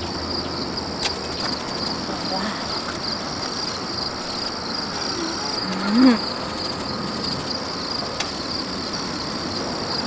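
Steady high chirring of crickets. About six seconds in, a woman makes one short vocal sound.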